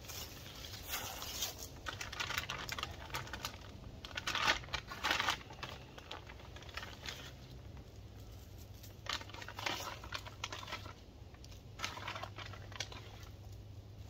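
Paper bag of bone meal crinkling and rustling as it is handled and shaken out into planting holes, in irregular short bursts.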